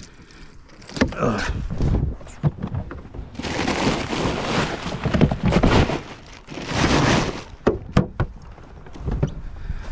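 Plastic bag of ice crinkling and rustling in a hard cooler as a hand digs into it, then a few sharp knocks from the cooler lid near the end.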